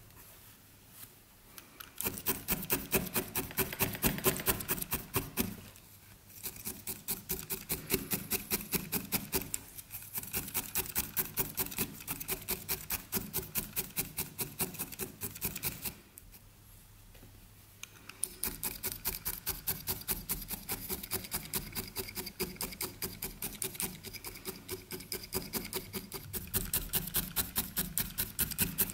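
A multi-needle felting pen stabbing again and again into a ball of wool roving on a foam felting mat, in a quick, even rhythm of soft crunchy pokes. The poking stops briefly about six and ten seconds in and for about two seconds around sixteen seconds in.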